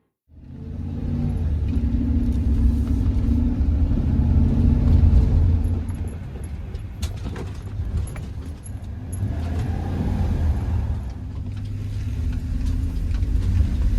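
Steady low rumble of a vehicle driving, a little louder for the first half and easing off after about six seconds, with light jingling like keys and a few clicks in the second half.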